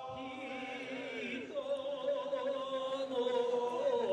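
Men's voices chanting a kiyari kudoki, a traditional Japanese work chant, sung for raising the ritual boat's mast. Several voices hold long, wavering notes at different pitches, with a low note coming in just after the start.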